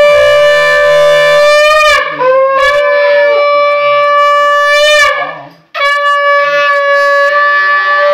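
Conch shell (shankha) blown in long, loud, steady blasts: one ends about two seconds in, a second runs from about two and a half to five seconds, and a third starts just before six seconds. The note bends and breaks at the end of each blast.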